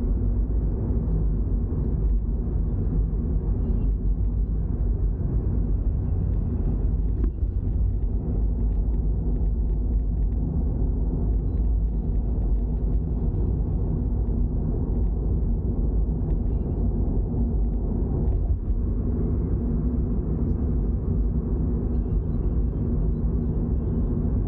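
Toyota GR86's flat-four engine and tyre-road rumble while driving at a steady pace: a low, even drone that holds steady with no clear revving.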